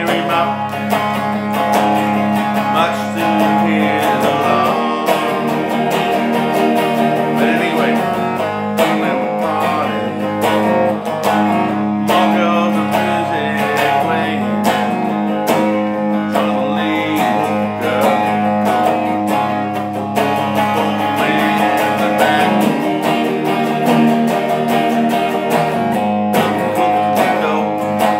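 Electric guitar strummed in a continuous rhythmic pattern, with chords ringing over a steady low sustained note.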